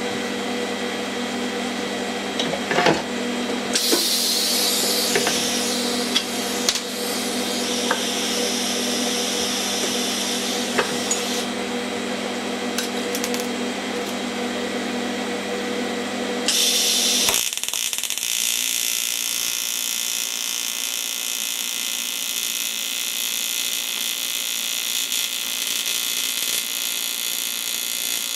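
Workshop hum with a few knocks and a spell of hiss, then, about 17 seconds in, an AC TIG welding arc strikes on a cast-aluminium oil sump and keeps up a steady, high-pitched electrical buzz.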